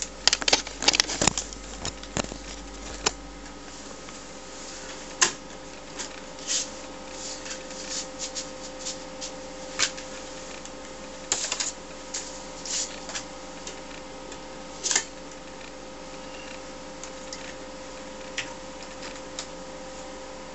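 Bumps and knocks as the camera is set down. Then scattered clicks and clacks from a TRS-80 Model 4P and its floppy drives as it is booted, over the steady hum of the running computer and its external hard drive.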